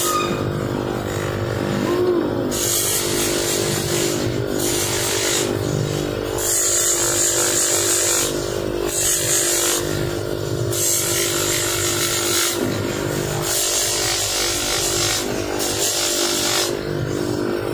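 Polishing machine running with a steady hum while a brass faucet mixer body is pressed against its spinning polishing wheel, giving a hissing grind that comes and goes again and again as the part is pressed on, turned and lifted.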